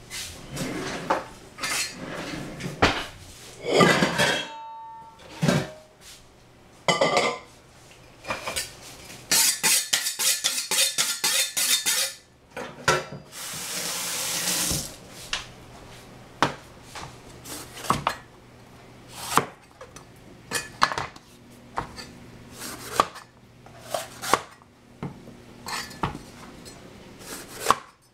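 Kitchen utensils and cookware clattering: scattered knocks and scrapes of metal on pots and dishes, with a quick run of taps about ten seconds in and a couple of seconds of hiss a little after the middle.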